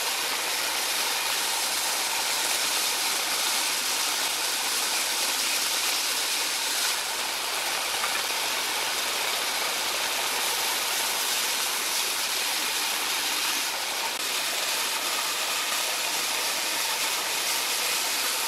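Bench-top band saw running and cutting along a wooden board: a steady, even hiss and whir of the blade through the wood.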